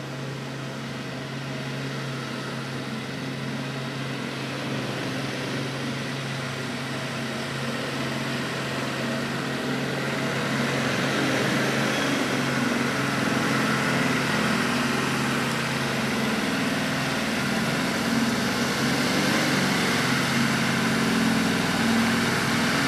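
Truck engine working hard through deep snow, its sound growing gradually louder through the stretch, over the steady low hum of another engine idling close by.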